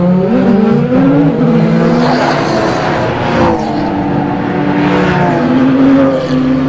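Racing cars, Le Mans-type sports prototypes and Porsche 911 GT3 GT cars, driving past one after another. Several engine notes overlap, their pitch rising and falling, with two louder pass-bys about two and five seconds in.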